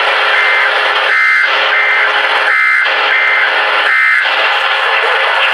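Emergency Alert System digital data bursts received over the radio: three short, shrill two-tone warbles about 1.3 seconds apart, with fainter copies in between, over a steady bed of radio hiss. Short bursts like these are the end-of-message code that closes an EAS test.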